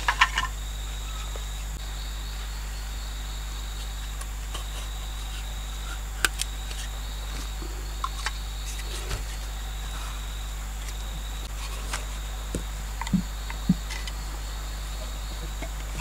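Steady high drone of forest crickets, with scattered light taps and knocks as sharpened stakes are pushed into the earth floor of a pit. A cluster of knocks comes at the start and a few more come near the end.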